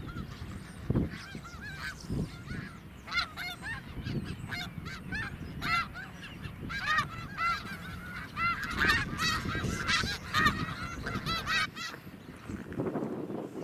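A flock of snow geese calling: many short, overlapping honks that become a dense chorus a few seconds in and thin out near the end.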